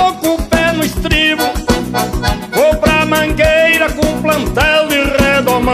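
Instrumental passage of a gaúcho folk song: accordion playing the melody over a steady, even beat.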